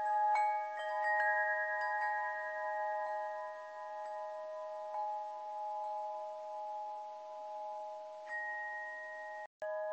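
Chimes ringing: several sustained bell tones overlap, with fresh strikes coming every half second or so at first and then several seconds apart. The sound cuts out briefly near the end and resumes.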